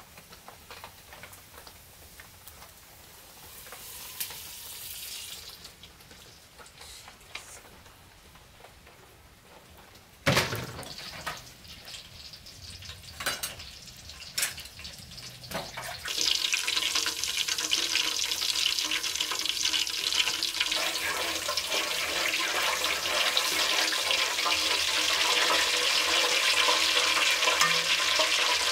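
Cooking oil sizzling in a pan as it heats, with a steady, loud hiss setting in about halfway through. A single sharp knock sounds about a third of the way in.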